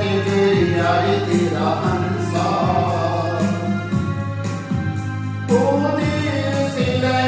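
A song: a sung vocal line over instrumental accompaniment with a steady low drone and a regular beat.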